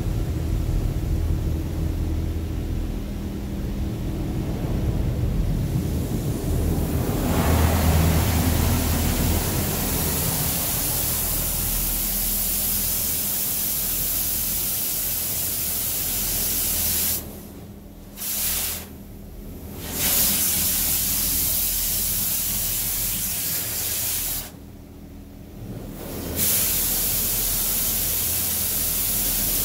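Touchless automatic car wash spraying water and foam against the body of a GMC Savana cargo van, heard from inside the van: a steady hiss of spray over a low, steady hum. The spray grows louder about seven seconds in and cuts out briefly a few times in the second half.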